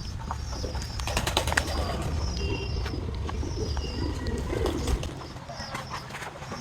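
Pigeons cooing, with repeated high chirps and scattered short clicks. A low rumble underneath drops away about five seconds in.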